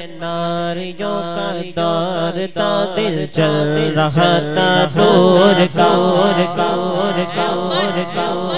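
Male voice singing a devotional Urdu kalam without instruments, in long melodic phrases over a steady hummed drone from backing voices. The singing grows louder about two seconds in.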